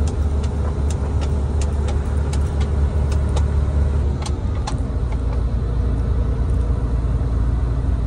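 Steady low rumble of engine and road noise heard inside a moving coach bus, with a scatter of sharp ticks over the first five seconds.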